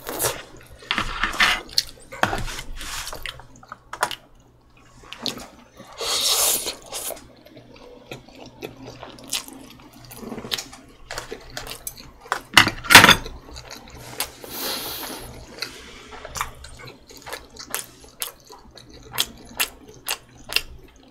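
Close-miked wet chewing and mouth sounds of a person eating: many sharp clicks and smacks, with louder rushes of noise about six seconds in and again near fifteen seconds.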